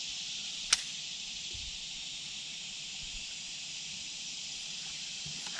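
Steady, high-pitched drone of insects, with one sharp click about three-quarters of a second in.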